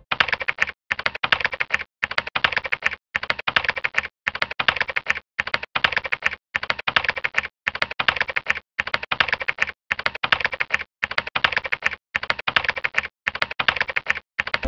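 Rapid typing on a keyboard: dense runs of key clicks broken by short pauses about once a second.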